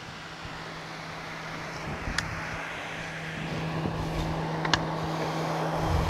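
A steady engine hum at one unchanging pitch, slowly growing louder, with a few light clicks.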